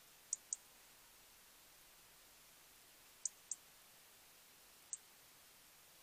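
European robin's sharp, high 'tic' calls: two quick pairs and then a single tick near the end, over near silence.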